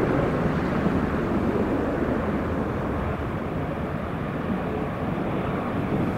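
Airbus A320-200 jet engines at takeoff thrust as the aircraft rolls away down the runway and lifts off: a steady rumble that slowly grows fainter as it moves away.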